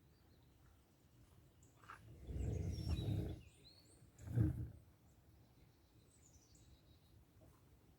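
Small birds chirping faintly on and off, with two low rumbles, one about two seconds in and a shorter one about four seconds in.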